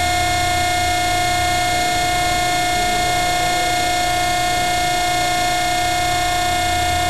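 Steady whine and hum of a tensile test rig's hydraulic power unit, holding one unchanging pitch while it loads a galvanized steel strand assembly toward failure.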